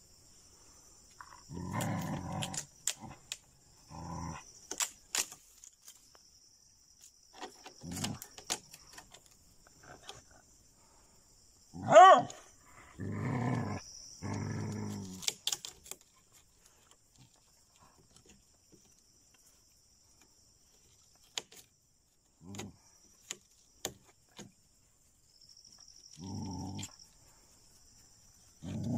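Dogs attacking a jungle cat: short, rough bouts of growling and barking with long gaps between them. The loudest is a sharp, high-pitched cry about twelve seconds in. Insects chirr steadily and high-pitched underneath.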